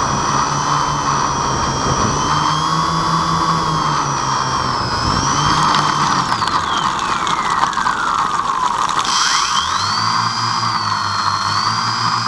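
Twin RC airplane motors and propellers whining, heard from the camera mounted on the plane. The pitch holds steady, winds down between about six and nine seconds in as the throttle comes off, then spins back up and holds as the plane rolls along the ground.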